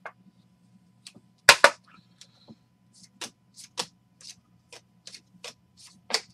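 Trading cards being handled: a card slid into a plastic sleeve and cards flicked off a stack one by one, giving a series of short sharp snaps and clicks. The two loudest come close together about a second and a half in, with softer ones following about once or twice a second.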